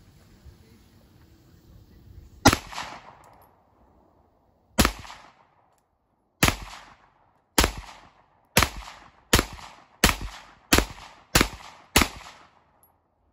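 Ten shots from a SAR USA B6 9mm pistol firing 115-grain rounds, each followed by a short fading echo. The first three come about two seconds apart, then the pace quickens to under a second between shots.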